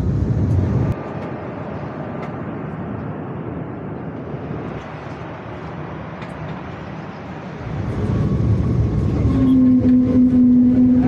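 A road vehicle running: engine and road rumble that drops about a second in and builds again near the end, when a steady droning tone joins and holds.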